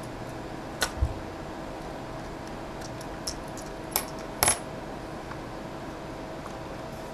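A few small, sharp metallic clicks and clinks, the loudest about four and a half seconds in, with a soft low thump about a second in: tiny Phillips screws and a screwdriver being handled while a small external hard drive enclosure is taken apart.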